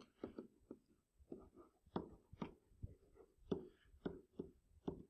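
Faint, irregular taps and light scratches of a stylus writing by hand on a tablet.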